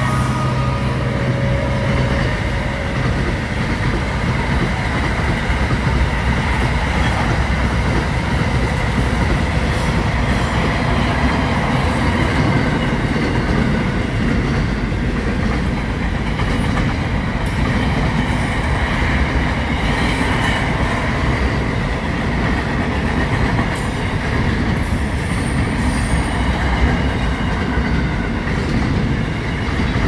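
Freight train passing, its wagons rolling by with a steady clatter of wheels on the rails. A locomotive's low engine tone dies away in the first few seconds.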